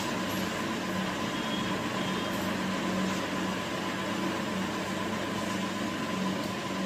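Steady mechanical hum over an even hiss, with a faint steady tone, and no distinct clicks or knocks.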